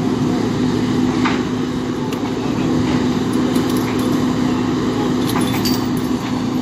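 Fire engine's diesel engine running steadily with a constant low hum, and a few light metallic clinks as firefighters break open a chain-link fence.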